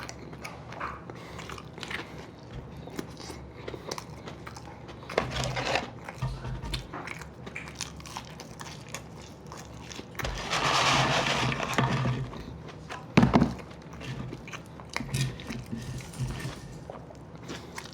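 Close-up eating sounds: people chewing and biting into a burger and fries, with scattered small mouth clicks and smacks. About ten seconds in there is a louder rush of noise lasting a couple of seconds, followed by a sharp knock.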